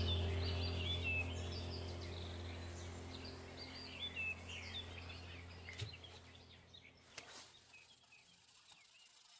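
Small birds chirping repeatedly over a steady low drone, both fading out gradually; a few faint clicks near the end.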